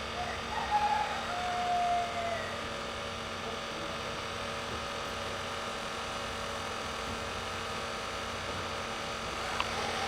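Steady electrical hum made of several fixed tones. About half a second in, a brief higher tone sounds for roughly two seconds and drops in pitch as it ends. A single click comes near the end.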